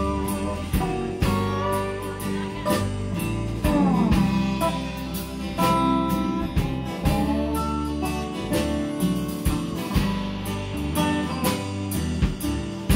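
Live acoustic blues band: a resonator guitar played lap-style with a slide, its notes gliding in pitch, over strummed acoustic guitars and a steady low bass line.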